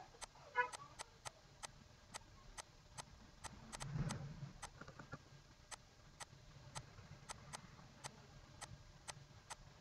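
Faint, irregular clicking of a stylus tapping on a digital writing tablet as numbers are handwritten, about two or three sharp clicks a second.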